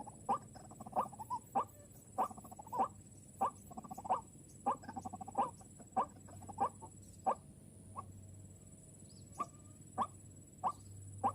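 White-breasted waterhen calls: a short note repeated about twice a second, thinning out after about seven seconds into single calls a second or so apart.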